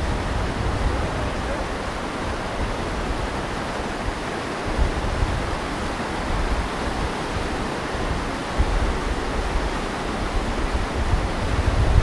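Whitewater rapids of the Nepisiguit River at Pabineau Falls rushing over granite ledges: a steady, full rush of water, with an uneven low rumble underneath.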